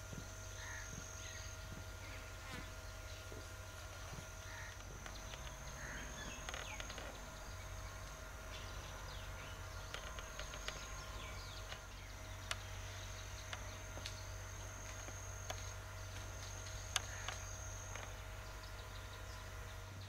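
Faint outdoor ambience of a high, steady insect trill that comes and goes, over a low steady hum, with a few sharp ticks in the second half.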